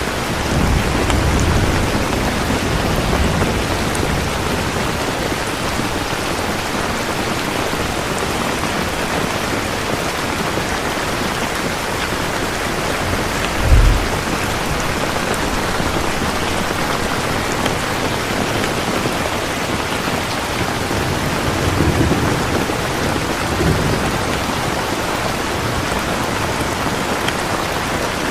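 Steady rain falling hard, an even hiss. Low rumbles come near the start and again about 22 seconds in, with one short low thump at about the middle.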